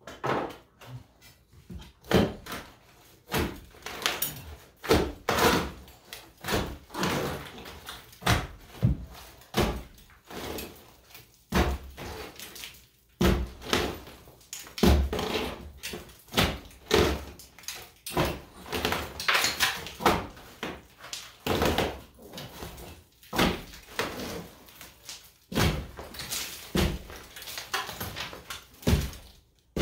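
Old stucco being pried and struck off a wall with a steel pry bar: a long run of irregular sharp knocks and cracks, one or two a second with short pauses, as the hard-set stucco breaks away in chunks.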